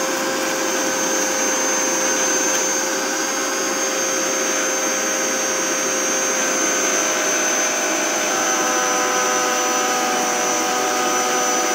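Electric mixer grinder (mixie) running steadily with a whine, grinding coriander, chillies, peanuts, garlic and tamarind water into chutney in its steel jar. It cuts off suddenly at the end.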